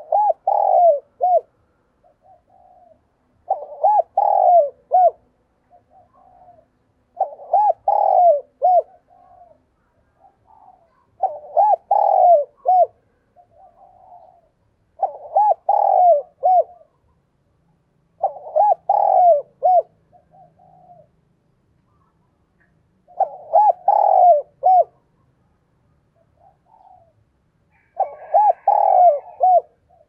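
Spotted dove cooing in repeated phrases, each a short run of a few coos about a second and a half long. Eight phrases come roughly four seconds apart, with softer single notes between them. This is the bird's calling song.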